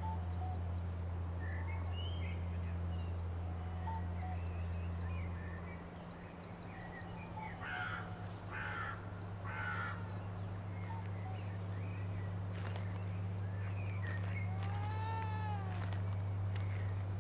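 Bird calls over a steady low hum: scattered small chirps, then three harsh crow-like caws about a second apart around eight seconds in. Near the end comes a single rising-and-falling call.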